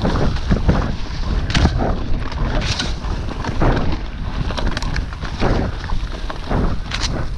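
Rumble of a Specialized Epic Comp full-suspension mountain bike's tyres rolling fast over a leafy dirt forest trail, with wind buffeting the microphone. Irregular sharp knocks and rattles come from the bike jolting over bumps, the loudest about one and a half seconds in, near three seconds in and near the end.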